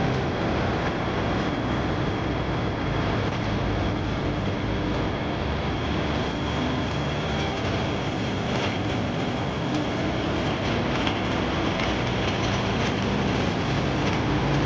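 Steady busy city-street ambience: a constant rumble of traffic with the hum of a pedestrian crossing.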